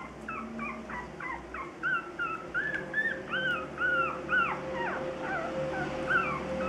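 Newborn puppies whimpering: a rapid series of short, high squeaks that rise and fall, about three a second, thinning out near the end.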